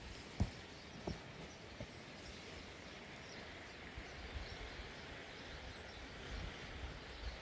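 Faint outdoor background hiss, with three soft knocks in the first two seconds.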